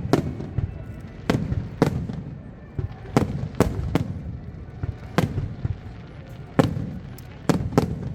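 Fireworks bursting in a display: a run of about nine sharp bangs at irregular gaps of roughly a second, with a low rumble lingering between them.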